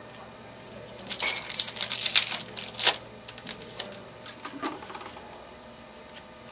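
Hands handling a pack of trading cards: a crackling, clicking burst of wrapper and card handling about a second in that lasts about two seconds, then scattered lighter clicks as cards are set down.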